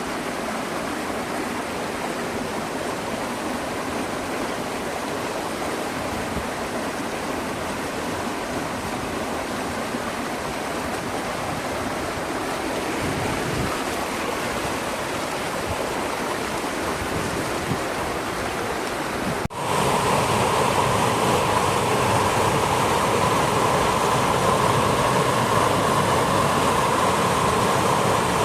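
Steady rush of running river water. About two-thirds of the way through it cuts off abruptly and resumes louder and fuller.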